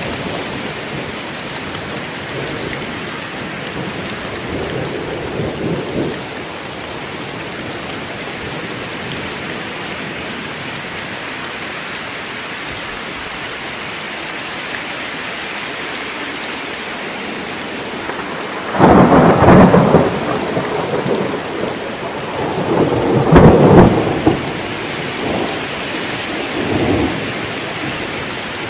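Steady heavy rain in a forest during a thunderstorm, with thunder rumbling: a faint roll early on, then two loud peals about two-thirds of the way in, a few seconds apart, and a weaker rumble near the end.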